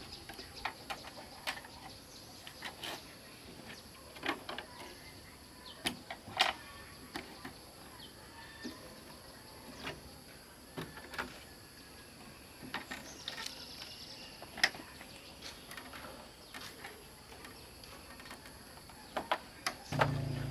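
Scattered light clicks and knocks of small objects being handled, over a faint steady high whine.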